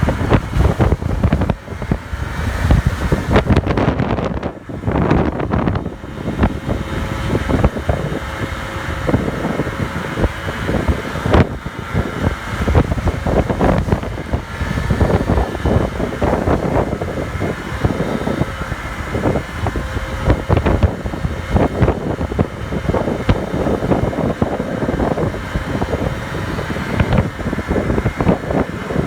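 50cc moped scooter engine running under way with a steady engine note, and heavy wind buffeting on the microphone.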